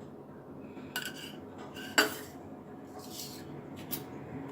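A spoon clinking against a bowl a few times, the loudest clink about two seconds in with a short ring.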